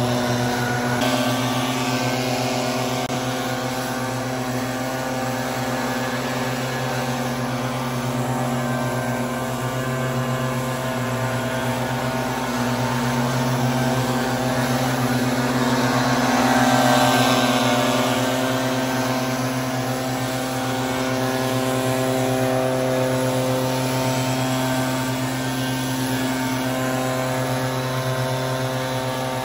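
Two-stroke gas backpack leaf blower running steadily at high throttle, with its engine note and the rush of air from the tube, swelling slightly about seventeen seconds in.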